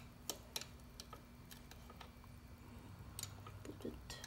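Steel wrench clicking against a dirt bike's chain adjuster bolt as it is turned and repositioned a bit at a time: a few faint, scattered metal ticks.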